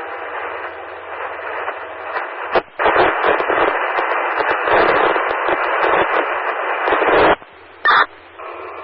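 Scanner radio hissing with static from an open channel that carries no clear voice. The hiss gets louder a little under three seconds in, cuts off about seven seconds in, and a short burst of static follows near the end.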